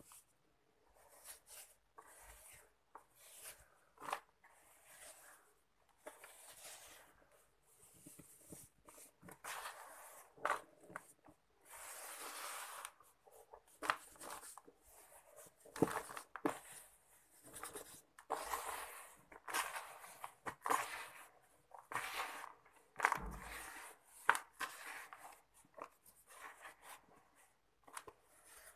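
Sand and cement mix being crumbled and sifted by hand in a plastic tub: irregular gritty rustles and trickles as it falls through the fingers, with crunches of clumps breaking.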